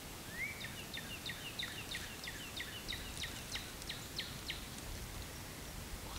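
A bird calling: a short rising whistle, then a quick run of about a dozen short falling notes, roughly three a second.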